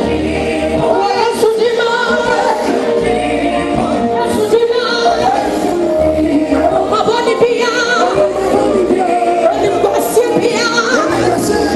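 Live gospel music: voices singing together over a bass line and steady percussion.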